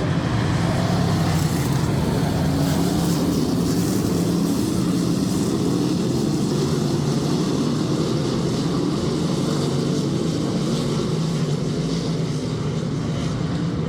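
Dirt-track race cars running laps together, a steady engine drone from the field.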